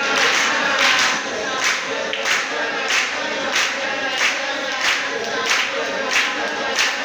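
A group of voices singing together, clapping along in time at about three claps every two seconds.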